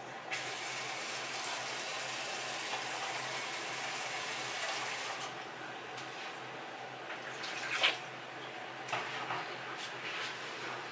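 Kitchen sink tap running as something is rinsed out, for about five seconds, then turned off. A few clinks and knocks follow, the sharpest about eight seconds in.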